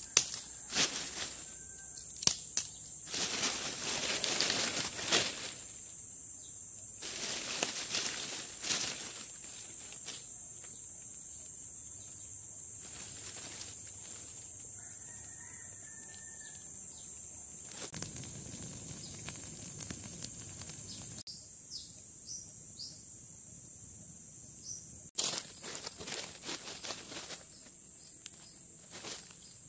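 Dry fallen leaves and twigs rustling and crackling as they are grabbed and gathered by hand, in several bursts over the first nine seconds or so and again briefly later, over a steady high-pitched insect drone. Near the end, scattered light crackles and taps.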